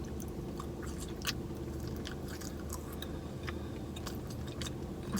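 A person chewing food close to the microphone, with scattered small mouth clicks over a low steady hum.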